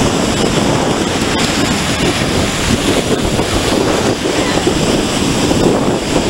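Breaking surf washing in over the sand, a steady rushing wash, with wind buffeting the microphone.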